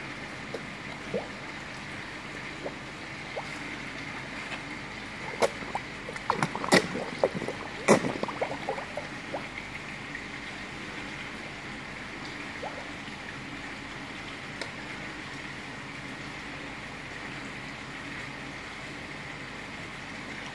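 Koi splashing and slurping at the pond surface as they take food from a hand. A cluster of sharp splashes comes about a third of the way through, over a steady trickle of running water.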